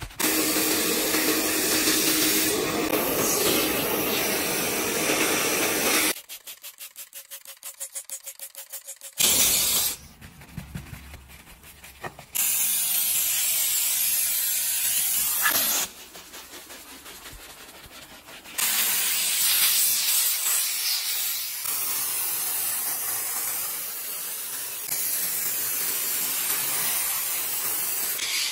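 Handheld steam cleaner hissing in long, steady jets. Two quieter stretches of fast, regular scrubbing strokes break it up.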